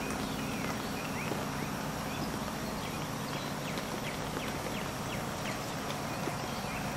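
Feral hogs feeding and rooting, with soft animal noises over a steady low hum. Many short, high chirps run through the middle.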